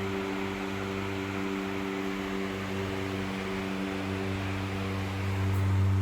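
Toshiba CT-40T ceiling fan running at its fixed high speed: a steady electric motor hum over the rush of air from the 40 cm blades, the hum swelling near the end.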